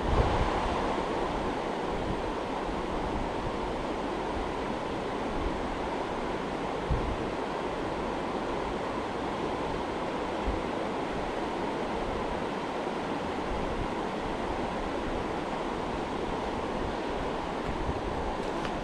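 River water rushing steadily past, with a couple of brief low bumps about 7 and 10 seconds in.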